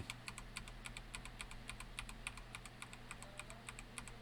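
Typing on an Epomaker TH98 mechanical keyboard with Gateron Red linear switches: a steady run of fairly faint, rapid keystrokes, several a second.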